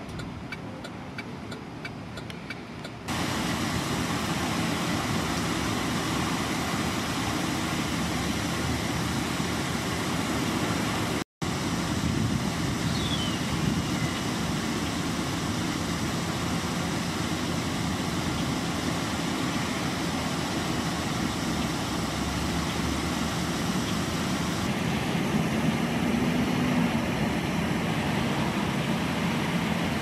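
Steady outdoor road traffic noise, cut off for a moment about a third of the way through, with a vehicle's engine note rising briefly near the end.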